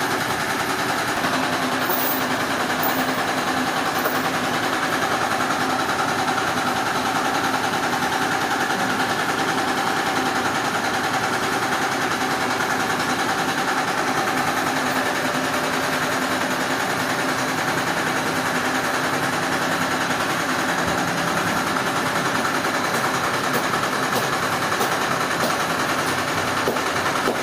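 Sawmill machinery running steadily with a constant motor drone and no pauses, and a few faint clicks near the end.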